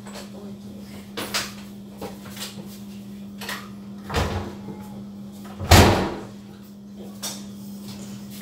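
A door being closed: a few clicks and knocks, then a heavy thud about six seconds in as it shuts, over a steady low hum.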